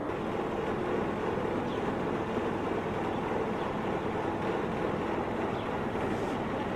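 Steady street noise of traffic.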